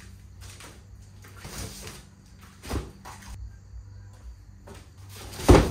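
Flat cardboard boxes holding tractor tires set down on a garage floor: a thump about two and a half seconds in and a louder thud near the end, with shuffling between them. A faint steady hum runs underneath.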